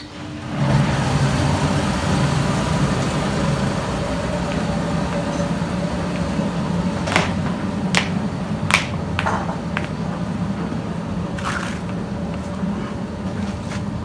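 Butter churn running on yogurt, a steady hum with the sloshing churn noise, starting about half a second in; the butter is slow to come because of the cold. Several sharp knocks or clicks come in the second half.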